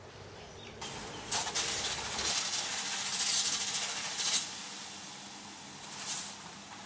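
Hissing as water from a hose is sprayed over a sand mould and spilled molten aluminium after a blowout. It starts about a second in and fades after about four and a half seconds.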